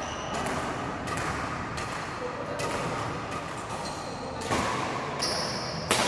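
Badminton rally: rackets strike the shuttlecock about once a second, with a sharper, louder hit near the end. Brief high squeaks of shoe soles on the tiled court come in between the hits.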